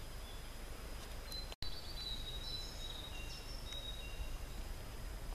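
Small birds singing in a birch and pine forest: several short, high, thin whistled notes over a steady low rumble. The sound drops out for an instant about one and a half seconds in.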